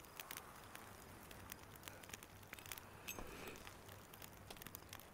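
Near silence: faint background hiss with scattered soft clicks and crackles.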